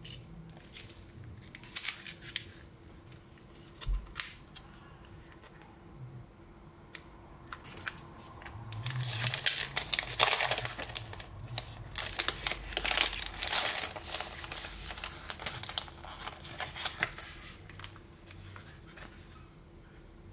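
Clear plastic cello packaging of a sheet of chipboard stickers being opened and handled: a few sharp crinkles at first, then a long stretch of louder crinkling in the middle as the sheet is pulled out of the sleeve.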